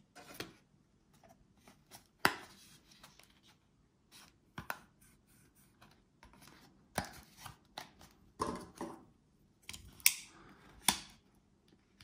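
Gerber Zilch folding pocket knife being handled: a handful of sharp metallic clicks a second or two apart, with light rubbing and rustling in between.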